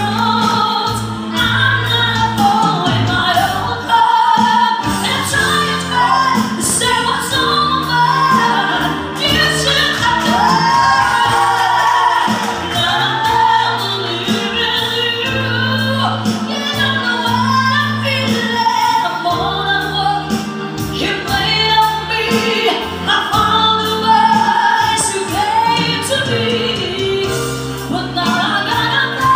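Live band music: a woman sings lead into a microphone, with vibrato on held notes, over electric and acoustic guitar and bass.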